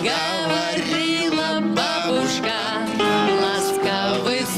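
Live band playing a song, with guitar and a drum kit including cymbals.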